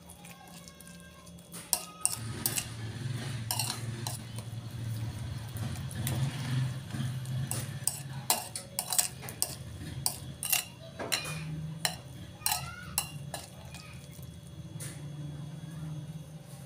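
A metal spoon stirring a moist minced chicken and carrot filling in a ceramic bowl, with irregular clinks and scrapes as it knocks against the bowl.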